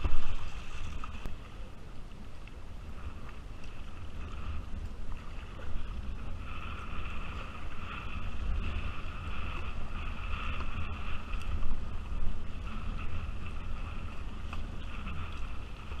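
River water rushing and splashing around a kayak running down a shallow gravel riffle, over a steady low rumble of water and wind on the microphone. The rushing grows louder about halfway through.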